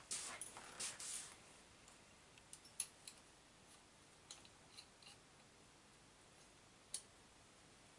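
Small parts and tools being handled during hand assembly of an RC truck's front suspension: faint scrapes and clicks in the first second, then a few isolated light ticks, the loudest single one near the end.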